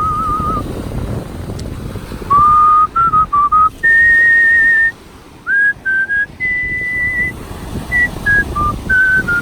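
Artistic whistling: a solo melody whistled by mouth, with held high notes, some with a slight wavering vibrato, alternating with quick short notes and brief pauses.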